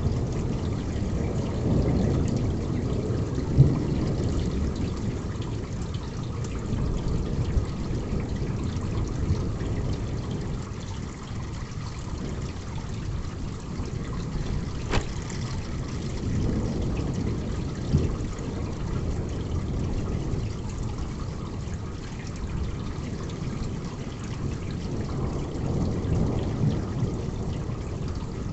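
Heavy rain with water pouring and trickling, a steady low rushing, broken by a few sharp taps.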